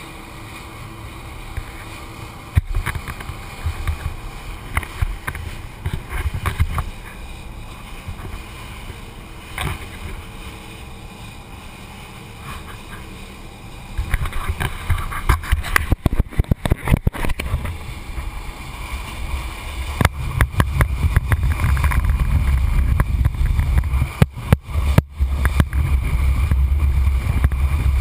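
Rigid inflatable boat running fast over choppy sea, heard through a GoPro's waterproof housing: a muffled, heavy rumble of wind, water and motor, broken by clusters of sharp knocks and thuds as the boat bounces over the waves. The rumble gets deeper and louder in the second half.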